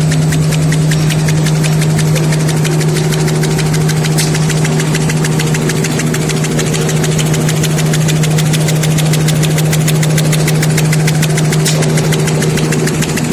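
Four-lane V-fold hand towel folding machine running steadily in production: a constant low hum under a fast, even clatter.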